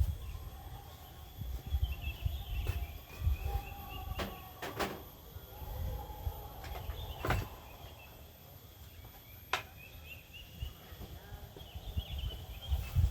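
Outdoor nature ambience: insects droning steadily, with short bird chirps on and off. A low rumble of wind buffets the microphone, and a few sharp clicks come through the middle.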